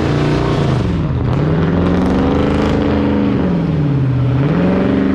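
A car engine revving, its pitch falling and rising twice in slow sweeps.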